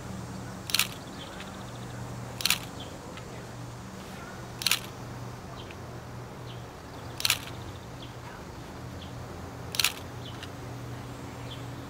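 Digital SLR camera shutter firing five times, single frames about two to two and a half seconds apart.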